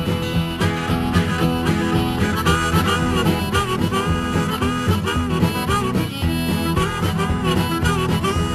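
Background music: an instrumental break with a harmonica solo, its notes bending up and down, over a guitar accompaniment.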